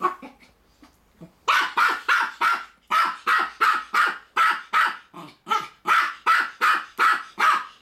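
Small keeshond barking rapidly at a hedgehog rolled into a ball, about four sharp barks a second after a brief pause near the start.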